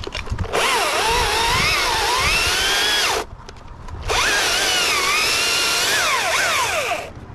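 Husqvarna T540i battery top-handle chainsaw cutting through a dead birch stem in two runs of about three seconds each, a short pause between them. Its high motor-and-chain whine wavers down and up in pitch as it cuts.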